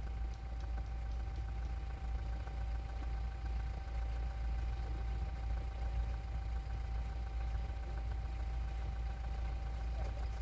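Vehicle engine running with a steady low rumble and a faint steady hum above it.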